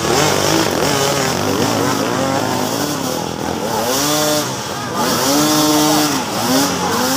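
Dirt bike engine revving hard and repeatedly on a steep dirt climb, the pitch rising and falling several times as the throttle is worked, with a buzzing, chainsaw-like tone.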